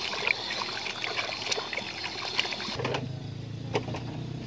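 Water sloshing and splashing as chunks of chayote are rubbed and turned by hand in a plastic basin. A little under three seconds in it stops abruptly and gives way to a low steady hum with a couple of sharp cracks.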